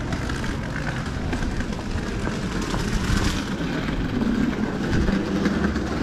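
A steady, low rumbling noise of an outdoor city street.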